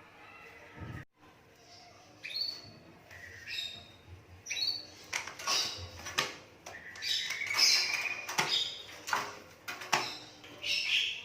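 Pied starling (jalak suren) calling: a quick run of varied squawks, chirps and short whistles mixed with sharp clicks, starting about two seconds in and busiest in the second half.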